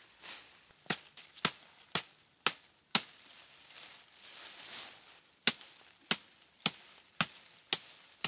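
Wood being chopped by hand: sharp strokes of a blade into wood at about two a second, a run of five, a pause, then six more.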